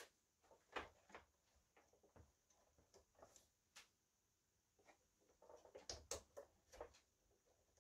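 Faint scattered clicks and rustles of gloved hands refitting the water pump and pushing wire connectors back on inside an opened De'Longhi ESAM coffee machine. A quick run of clicks comes about six seconds in.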